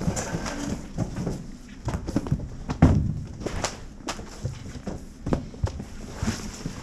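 Irregular knocks and thumps at uneven spacing, the loudest about three seconds in.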